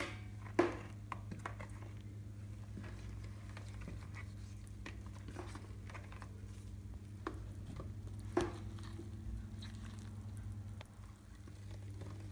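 Wooden spoon stirring thick, lumpy batter of flour, eggs, milk and oil in a plastic bowl: soft wet squishing and scraping, with scattered knocks of the spoon against the bowl, the loudest about half a second in and about eight seconds in. A steady low hum runs underneath.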